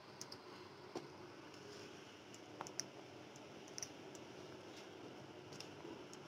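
Faint, scattered clicks and light knocks of a wooden spatula against the pan as the thick manchurian gravy is stirred, over a low hiss.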